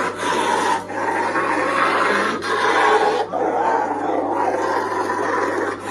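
Rottweiler growling and snarling in long bouts broken by three short pauses.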